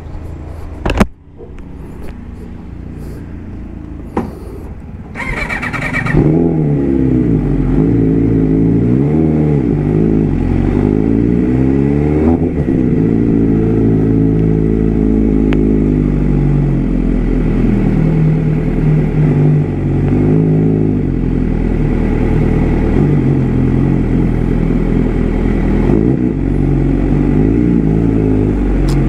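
MV Agusta F4 RC superbike's inline-four engine, getting loud about six seconds in and then running with the revs rising and falling as the bike is ridden slowly. A sharp knock comes about a second in.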